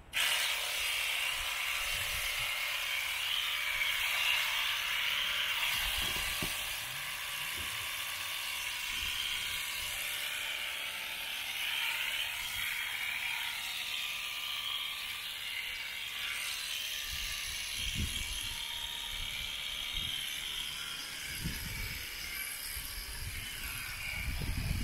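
Electric alpaca-shearing handpiece starting abruptly and running with a steady whirring buzz as the cutter clips through alpaca fleece.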